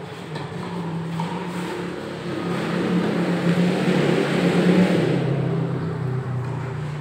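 A motor vehicle's engine passing, growing louder to a peak about four to five seconds in, then fading as its pitch drops.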